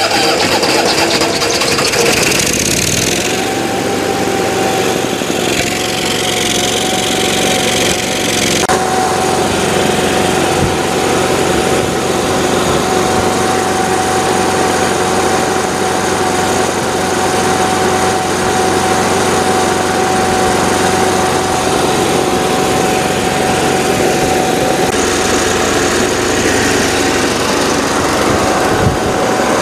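Cummins Onan generator's engine, converted from fuel injection to a carburettor, running steadily at governed speed on its first run after a fire-damage rebuild. A steady whine settles in about three seconds in and holds.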